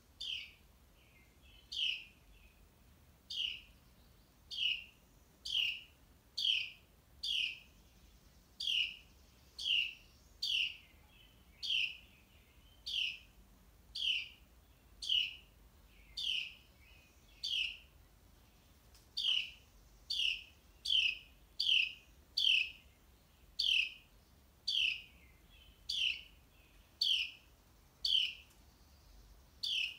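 Carolina wrens trilling: a sharp falling note repeated about once a second, which the uploader takes for the parents calling to rouse their fledglings.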